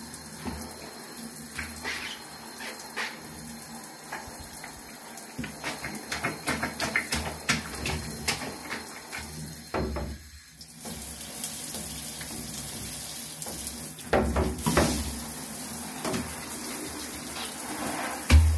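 Handheld shower spraying water onto a sneaker and the shower tray, with scattered clicks and taps as the shoe is rubbed underfoot. The spray drops away briefly about ten seconds in, and a sharp thump comes near the end.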